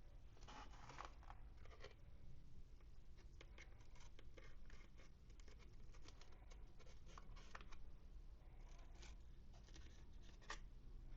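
Faint, irregular scratching, clicking and rustling from hands unwrapping and handling toy packaging and small plastic pieces.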